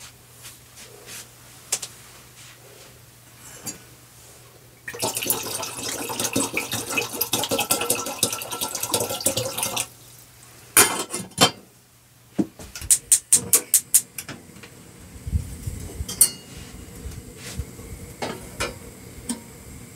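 Kitchen work in a caravan: dishes clinking, then water running for about five seconds. A quick series of sharp clicks follows, then a low rumble in the second half.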